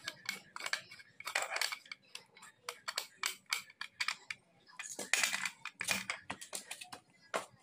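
Metal parts of a scooter's torque drive clinking and clicking irregularly as the sliding sheave and clutch lining set are fitted together by hand, with a few short scraping sounds.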